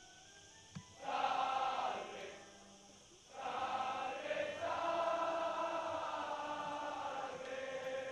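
Voices in drawn-out, chant-like phrases on long held pitches: a short phrase about a second in, then a longer one from about three seconds in.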